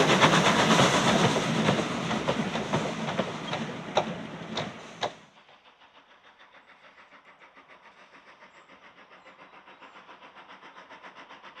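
Vintage railway carriages behind an LBSCR Terrier 0-6-0T tank engine rolling past, their wheels clicking over the rail joints with a few sharper clacks as the sound fades. About five seconds in it cuts to the faint, fast, even exhaust beat of a steam locomotive working in the distance, slowly growing louder as it approaches.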